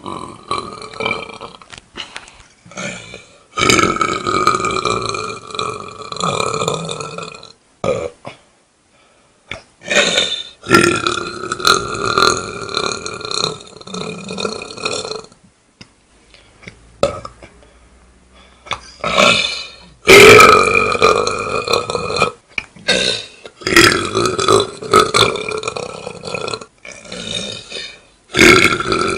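A series of loud, drawn-out belches, one after another. A few short ones come first, then about five long ones lasting several seconds each, with short pauses between them.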